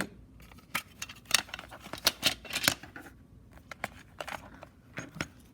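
Plastic compact cassette shells being handled, giving a string of irregular light clicks and taps, bunched in two spells.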